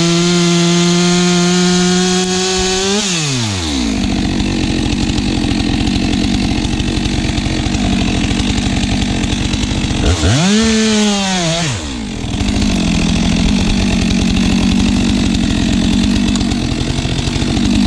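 Stihl MS 462 two-stroke chainsaw at full throttle, freshly hand-filed chain. It revs freely, then its pitch drops sharply about three seconds in as the chain bites into a log and it cuts under load. Around ten seconds in the revs rise and fall once before it settles back into the cut.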